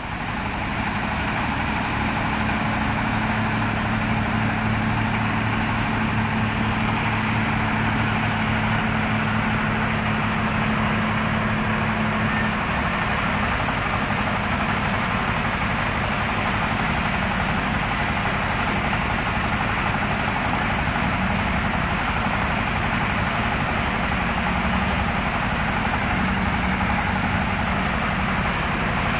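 Diesel-powered rice thresher running steadily at constant speed: a level engine hum under a strong, even hiss.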